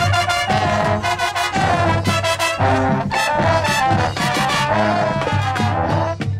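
High school marching band playing a loud brass passage in punched, rhythmic chords, then cutting off abruptly near the end.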